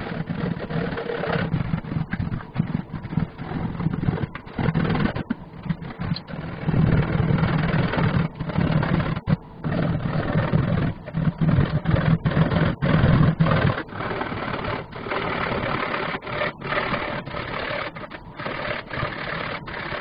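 A bare hacksaw blade held in the hand, sawing back and forth along the joint between ceramic wall tiles. It makes rapid scraping strokes, broken by a few short pauses.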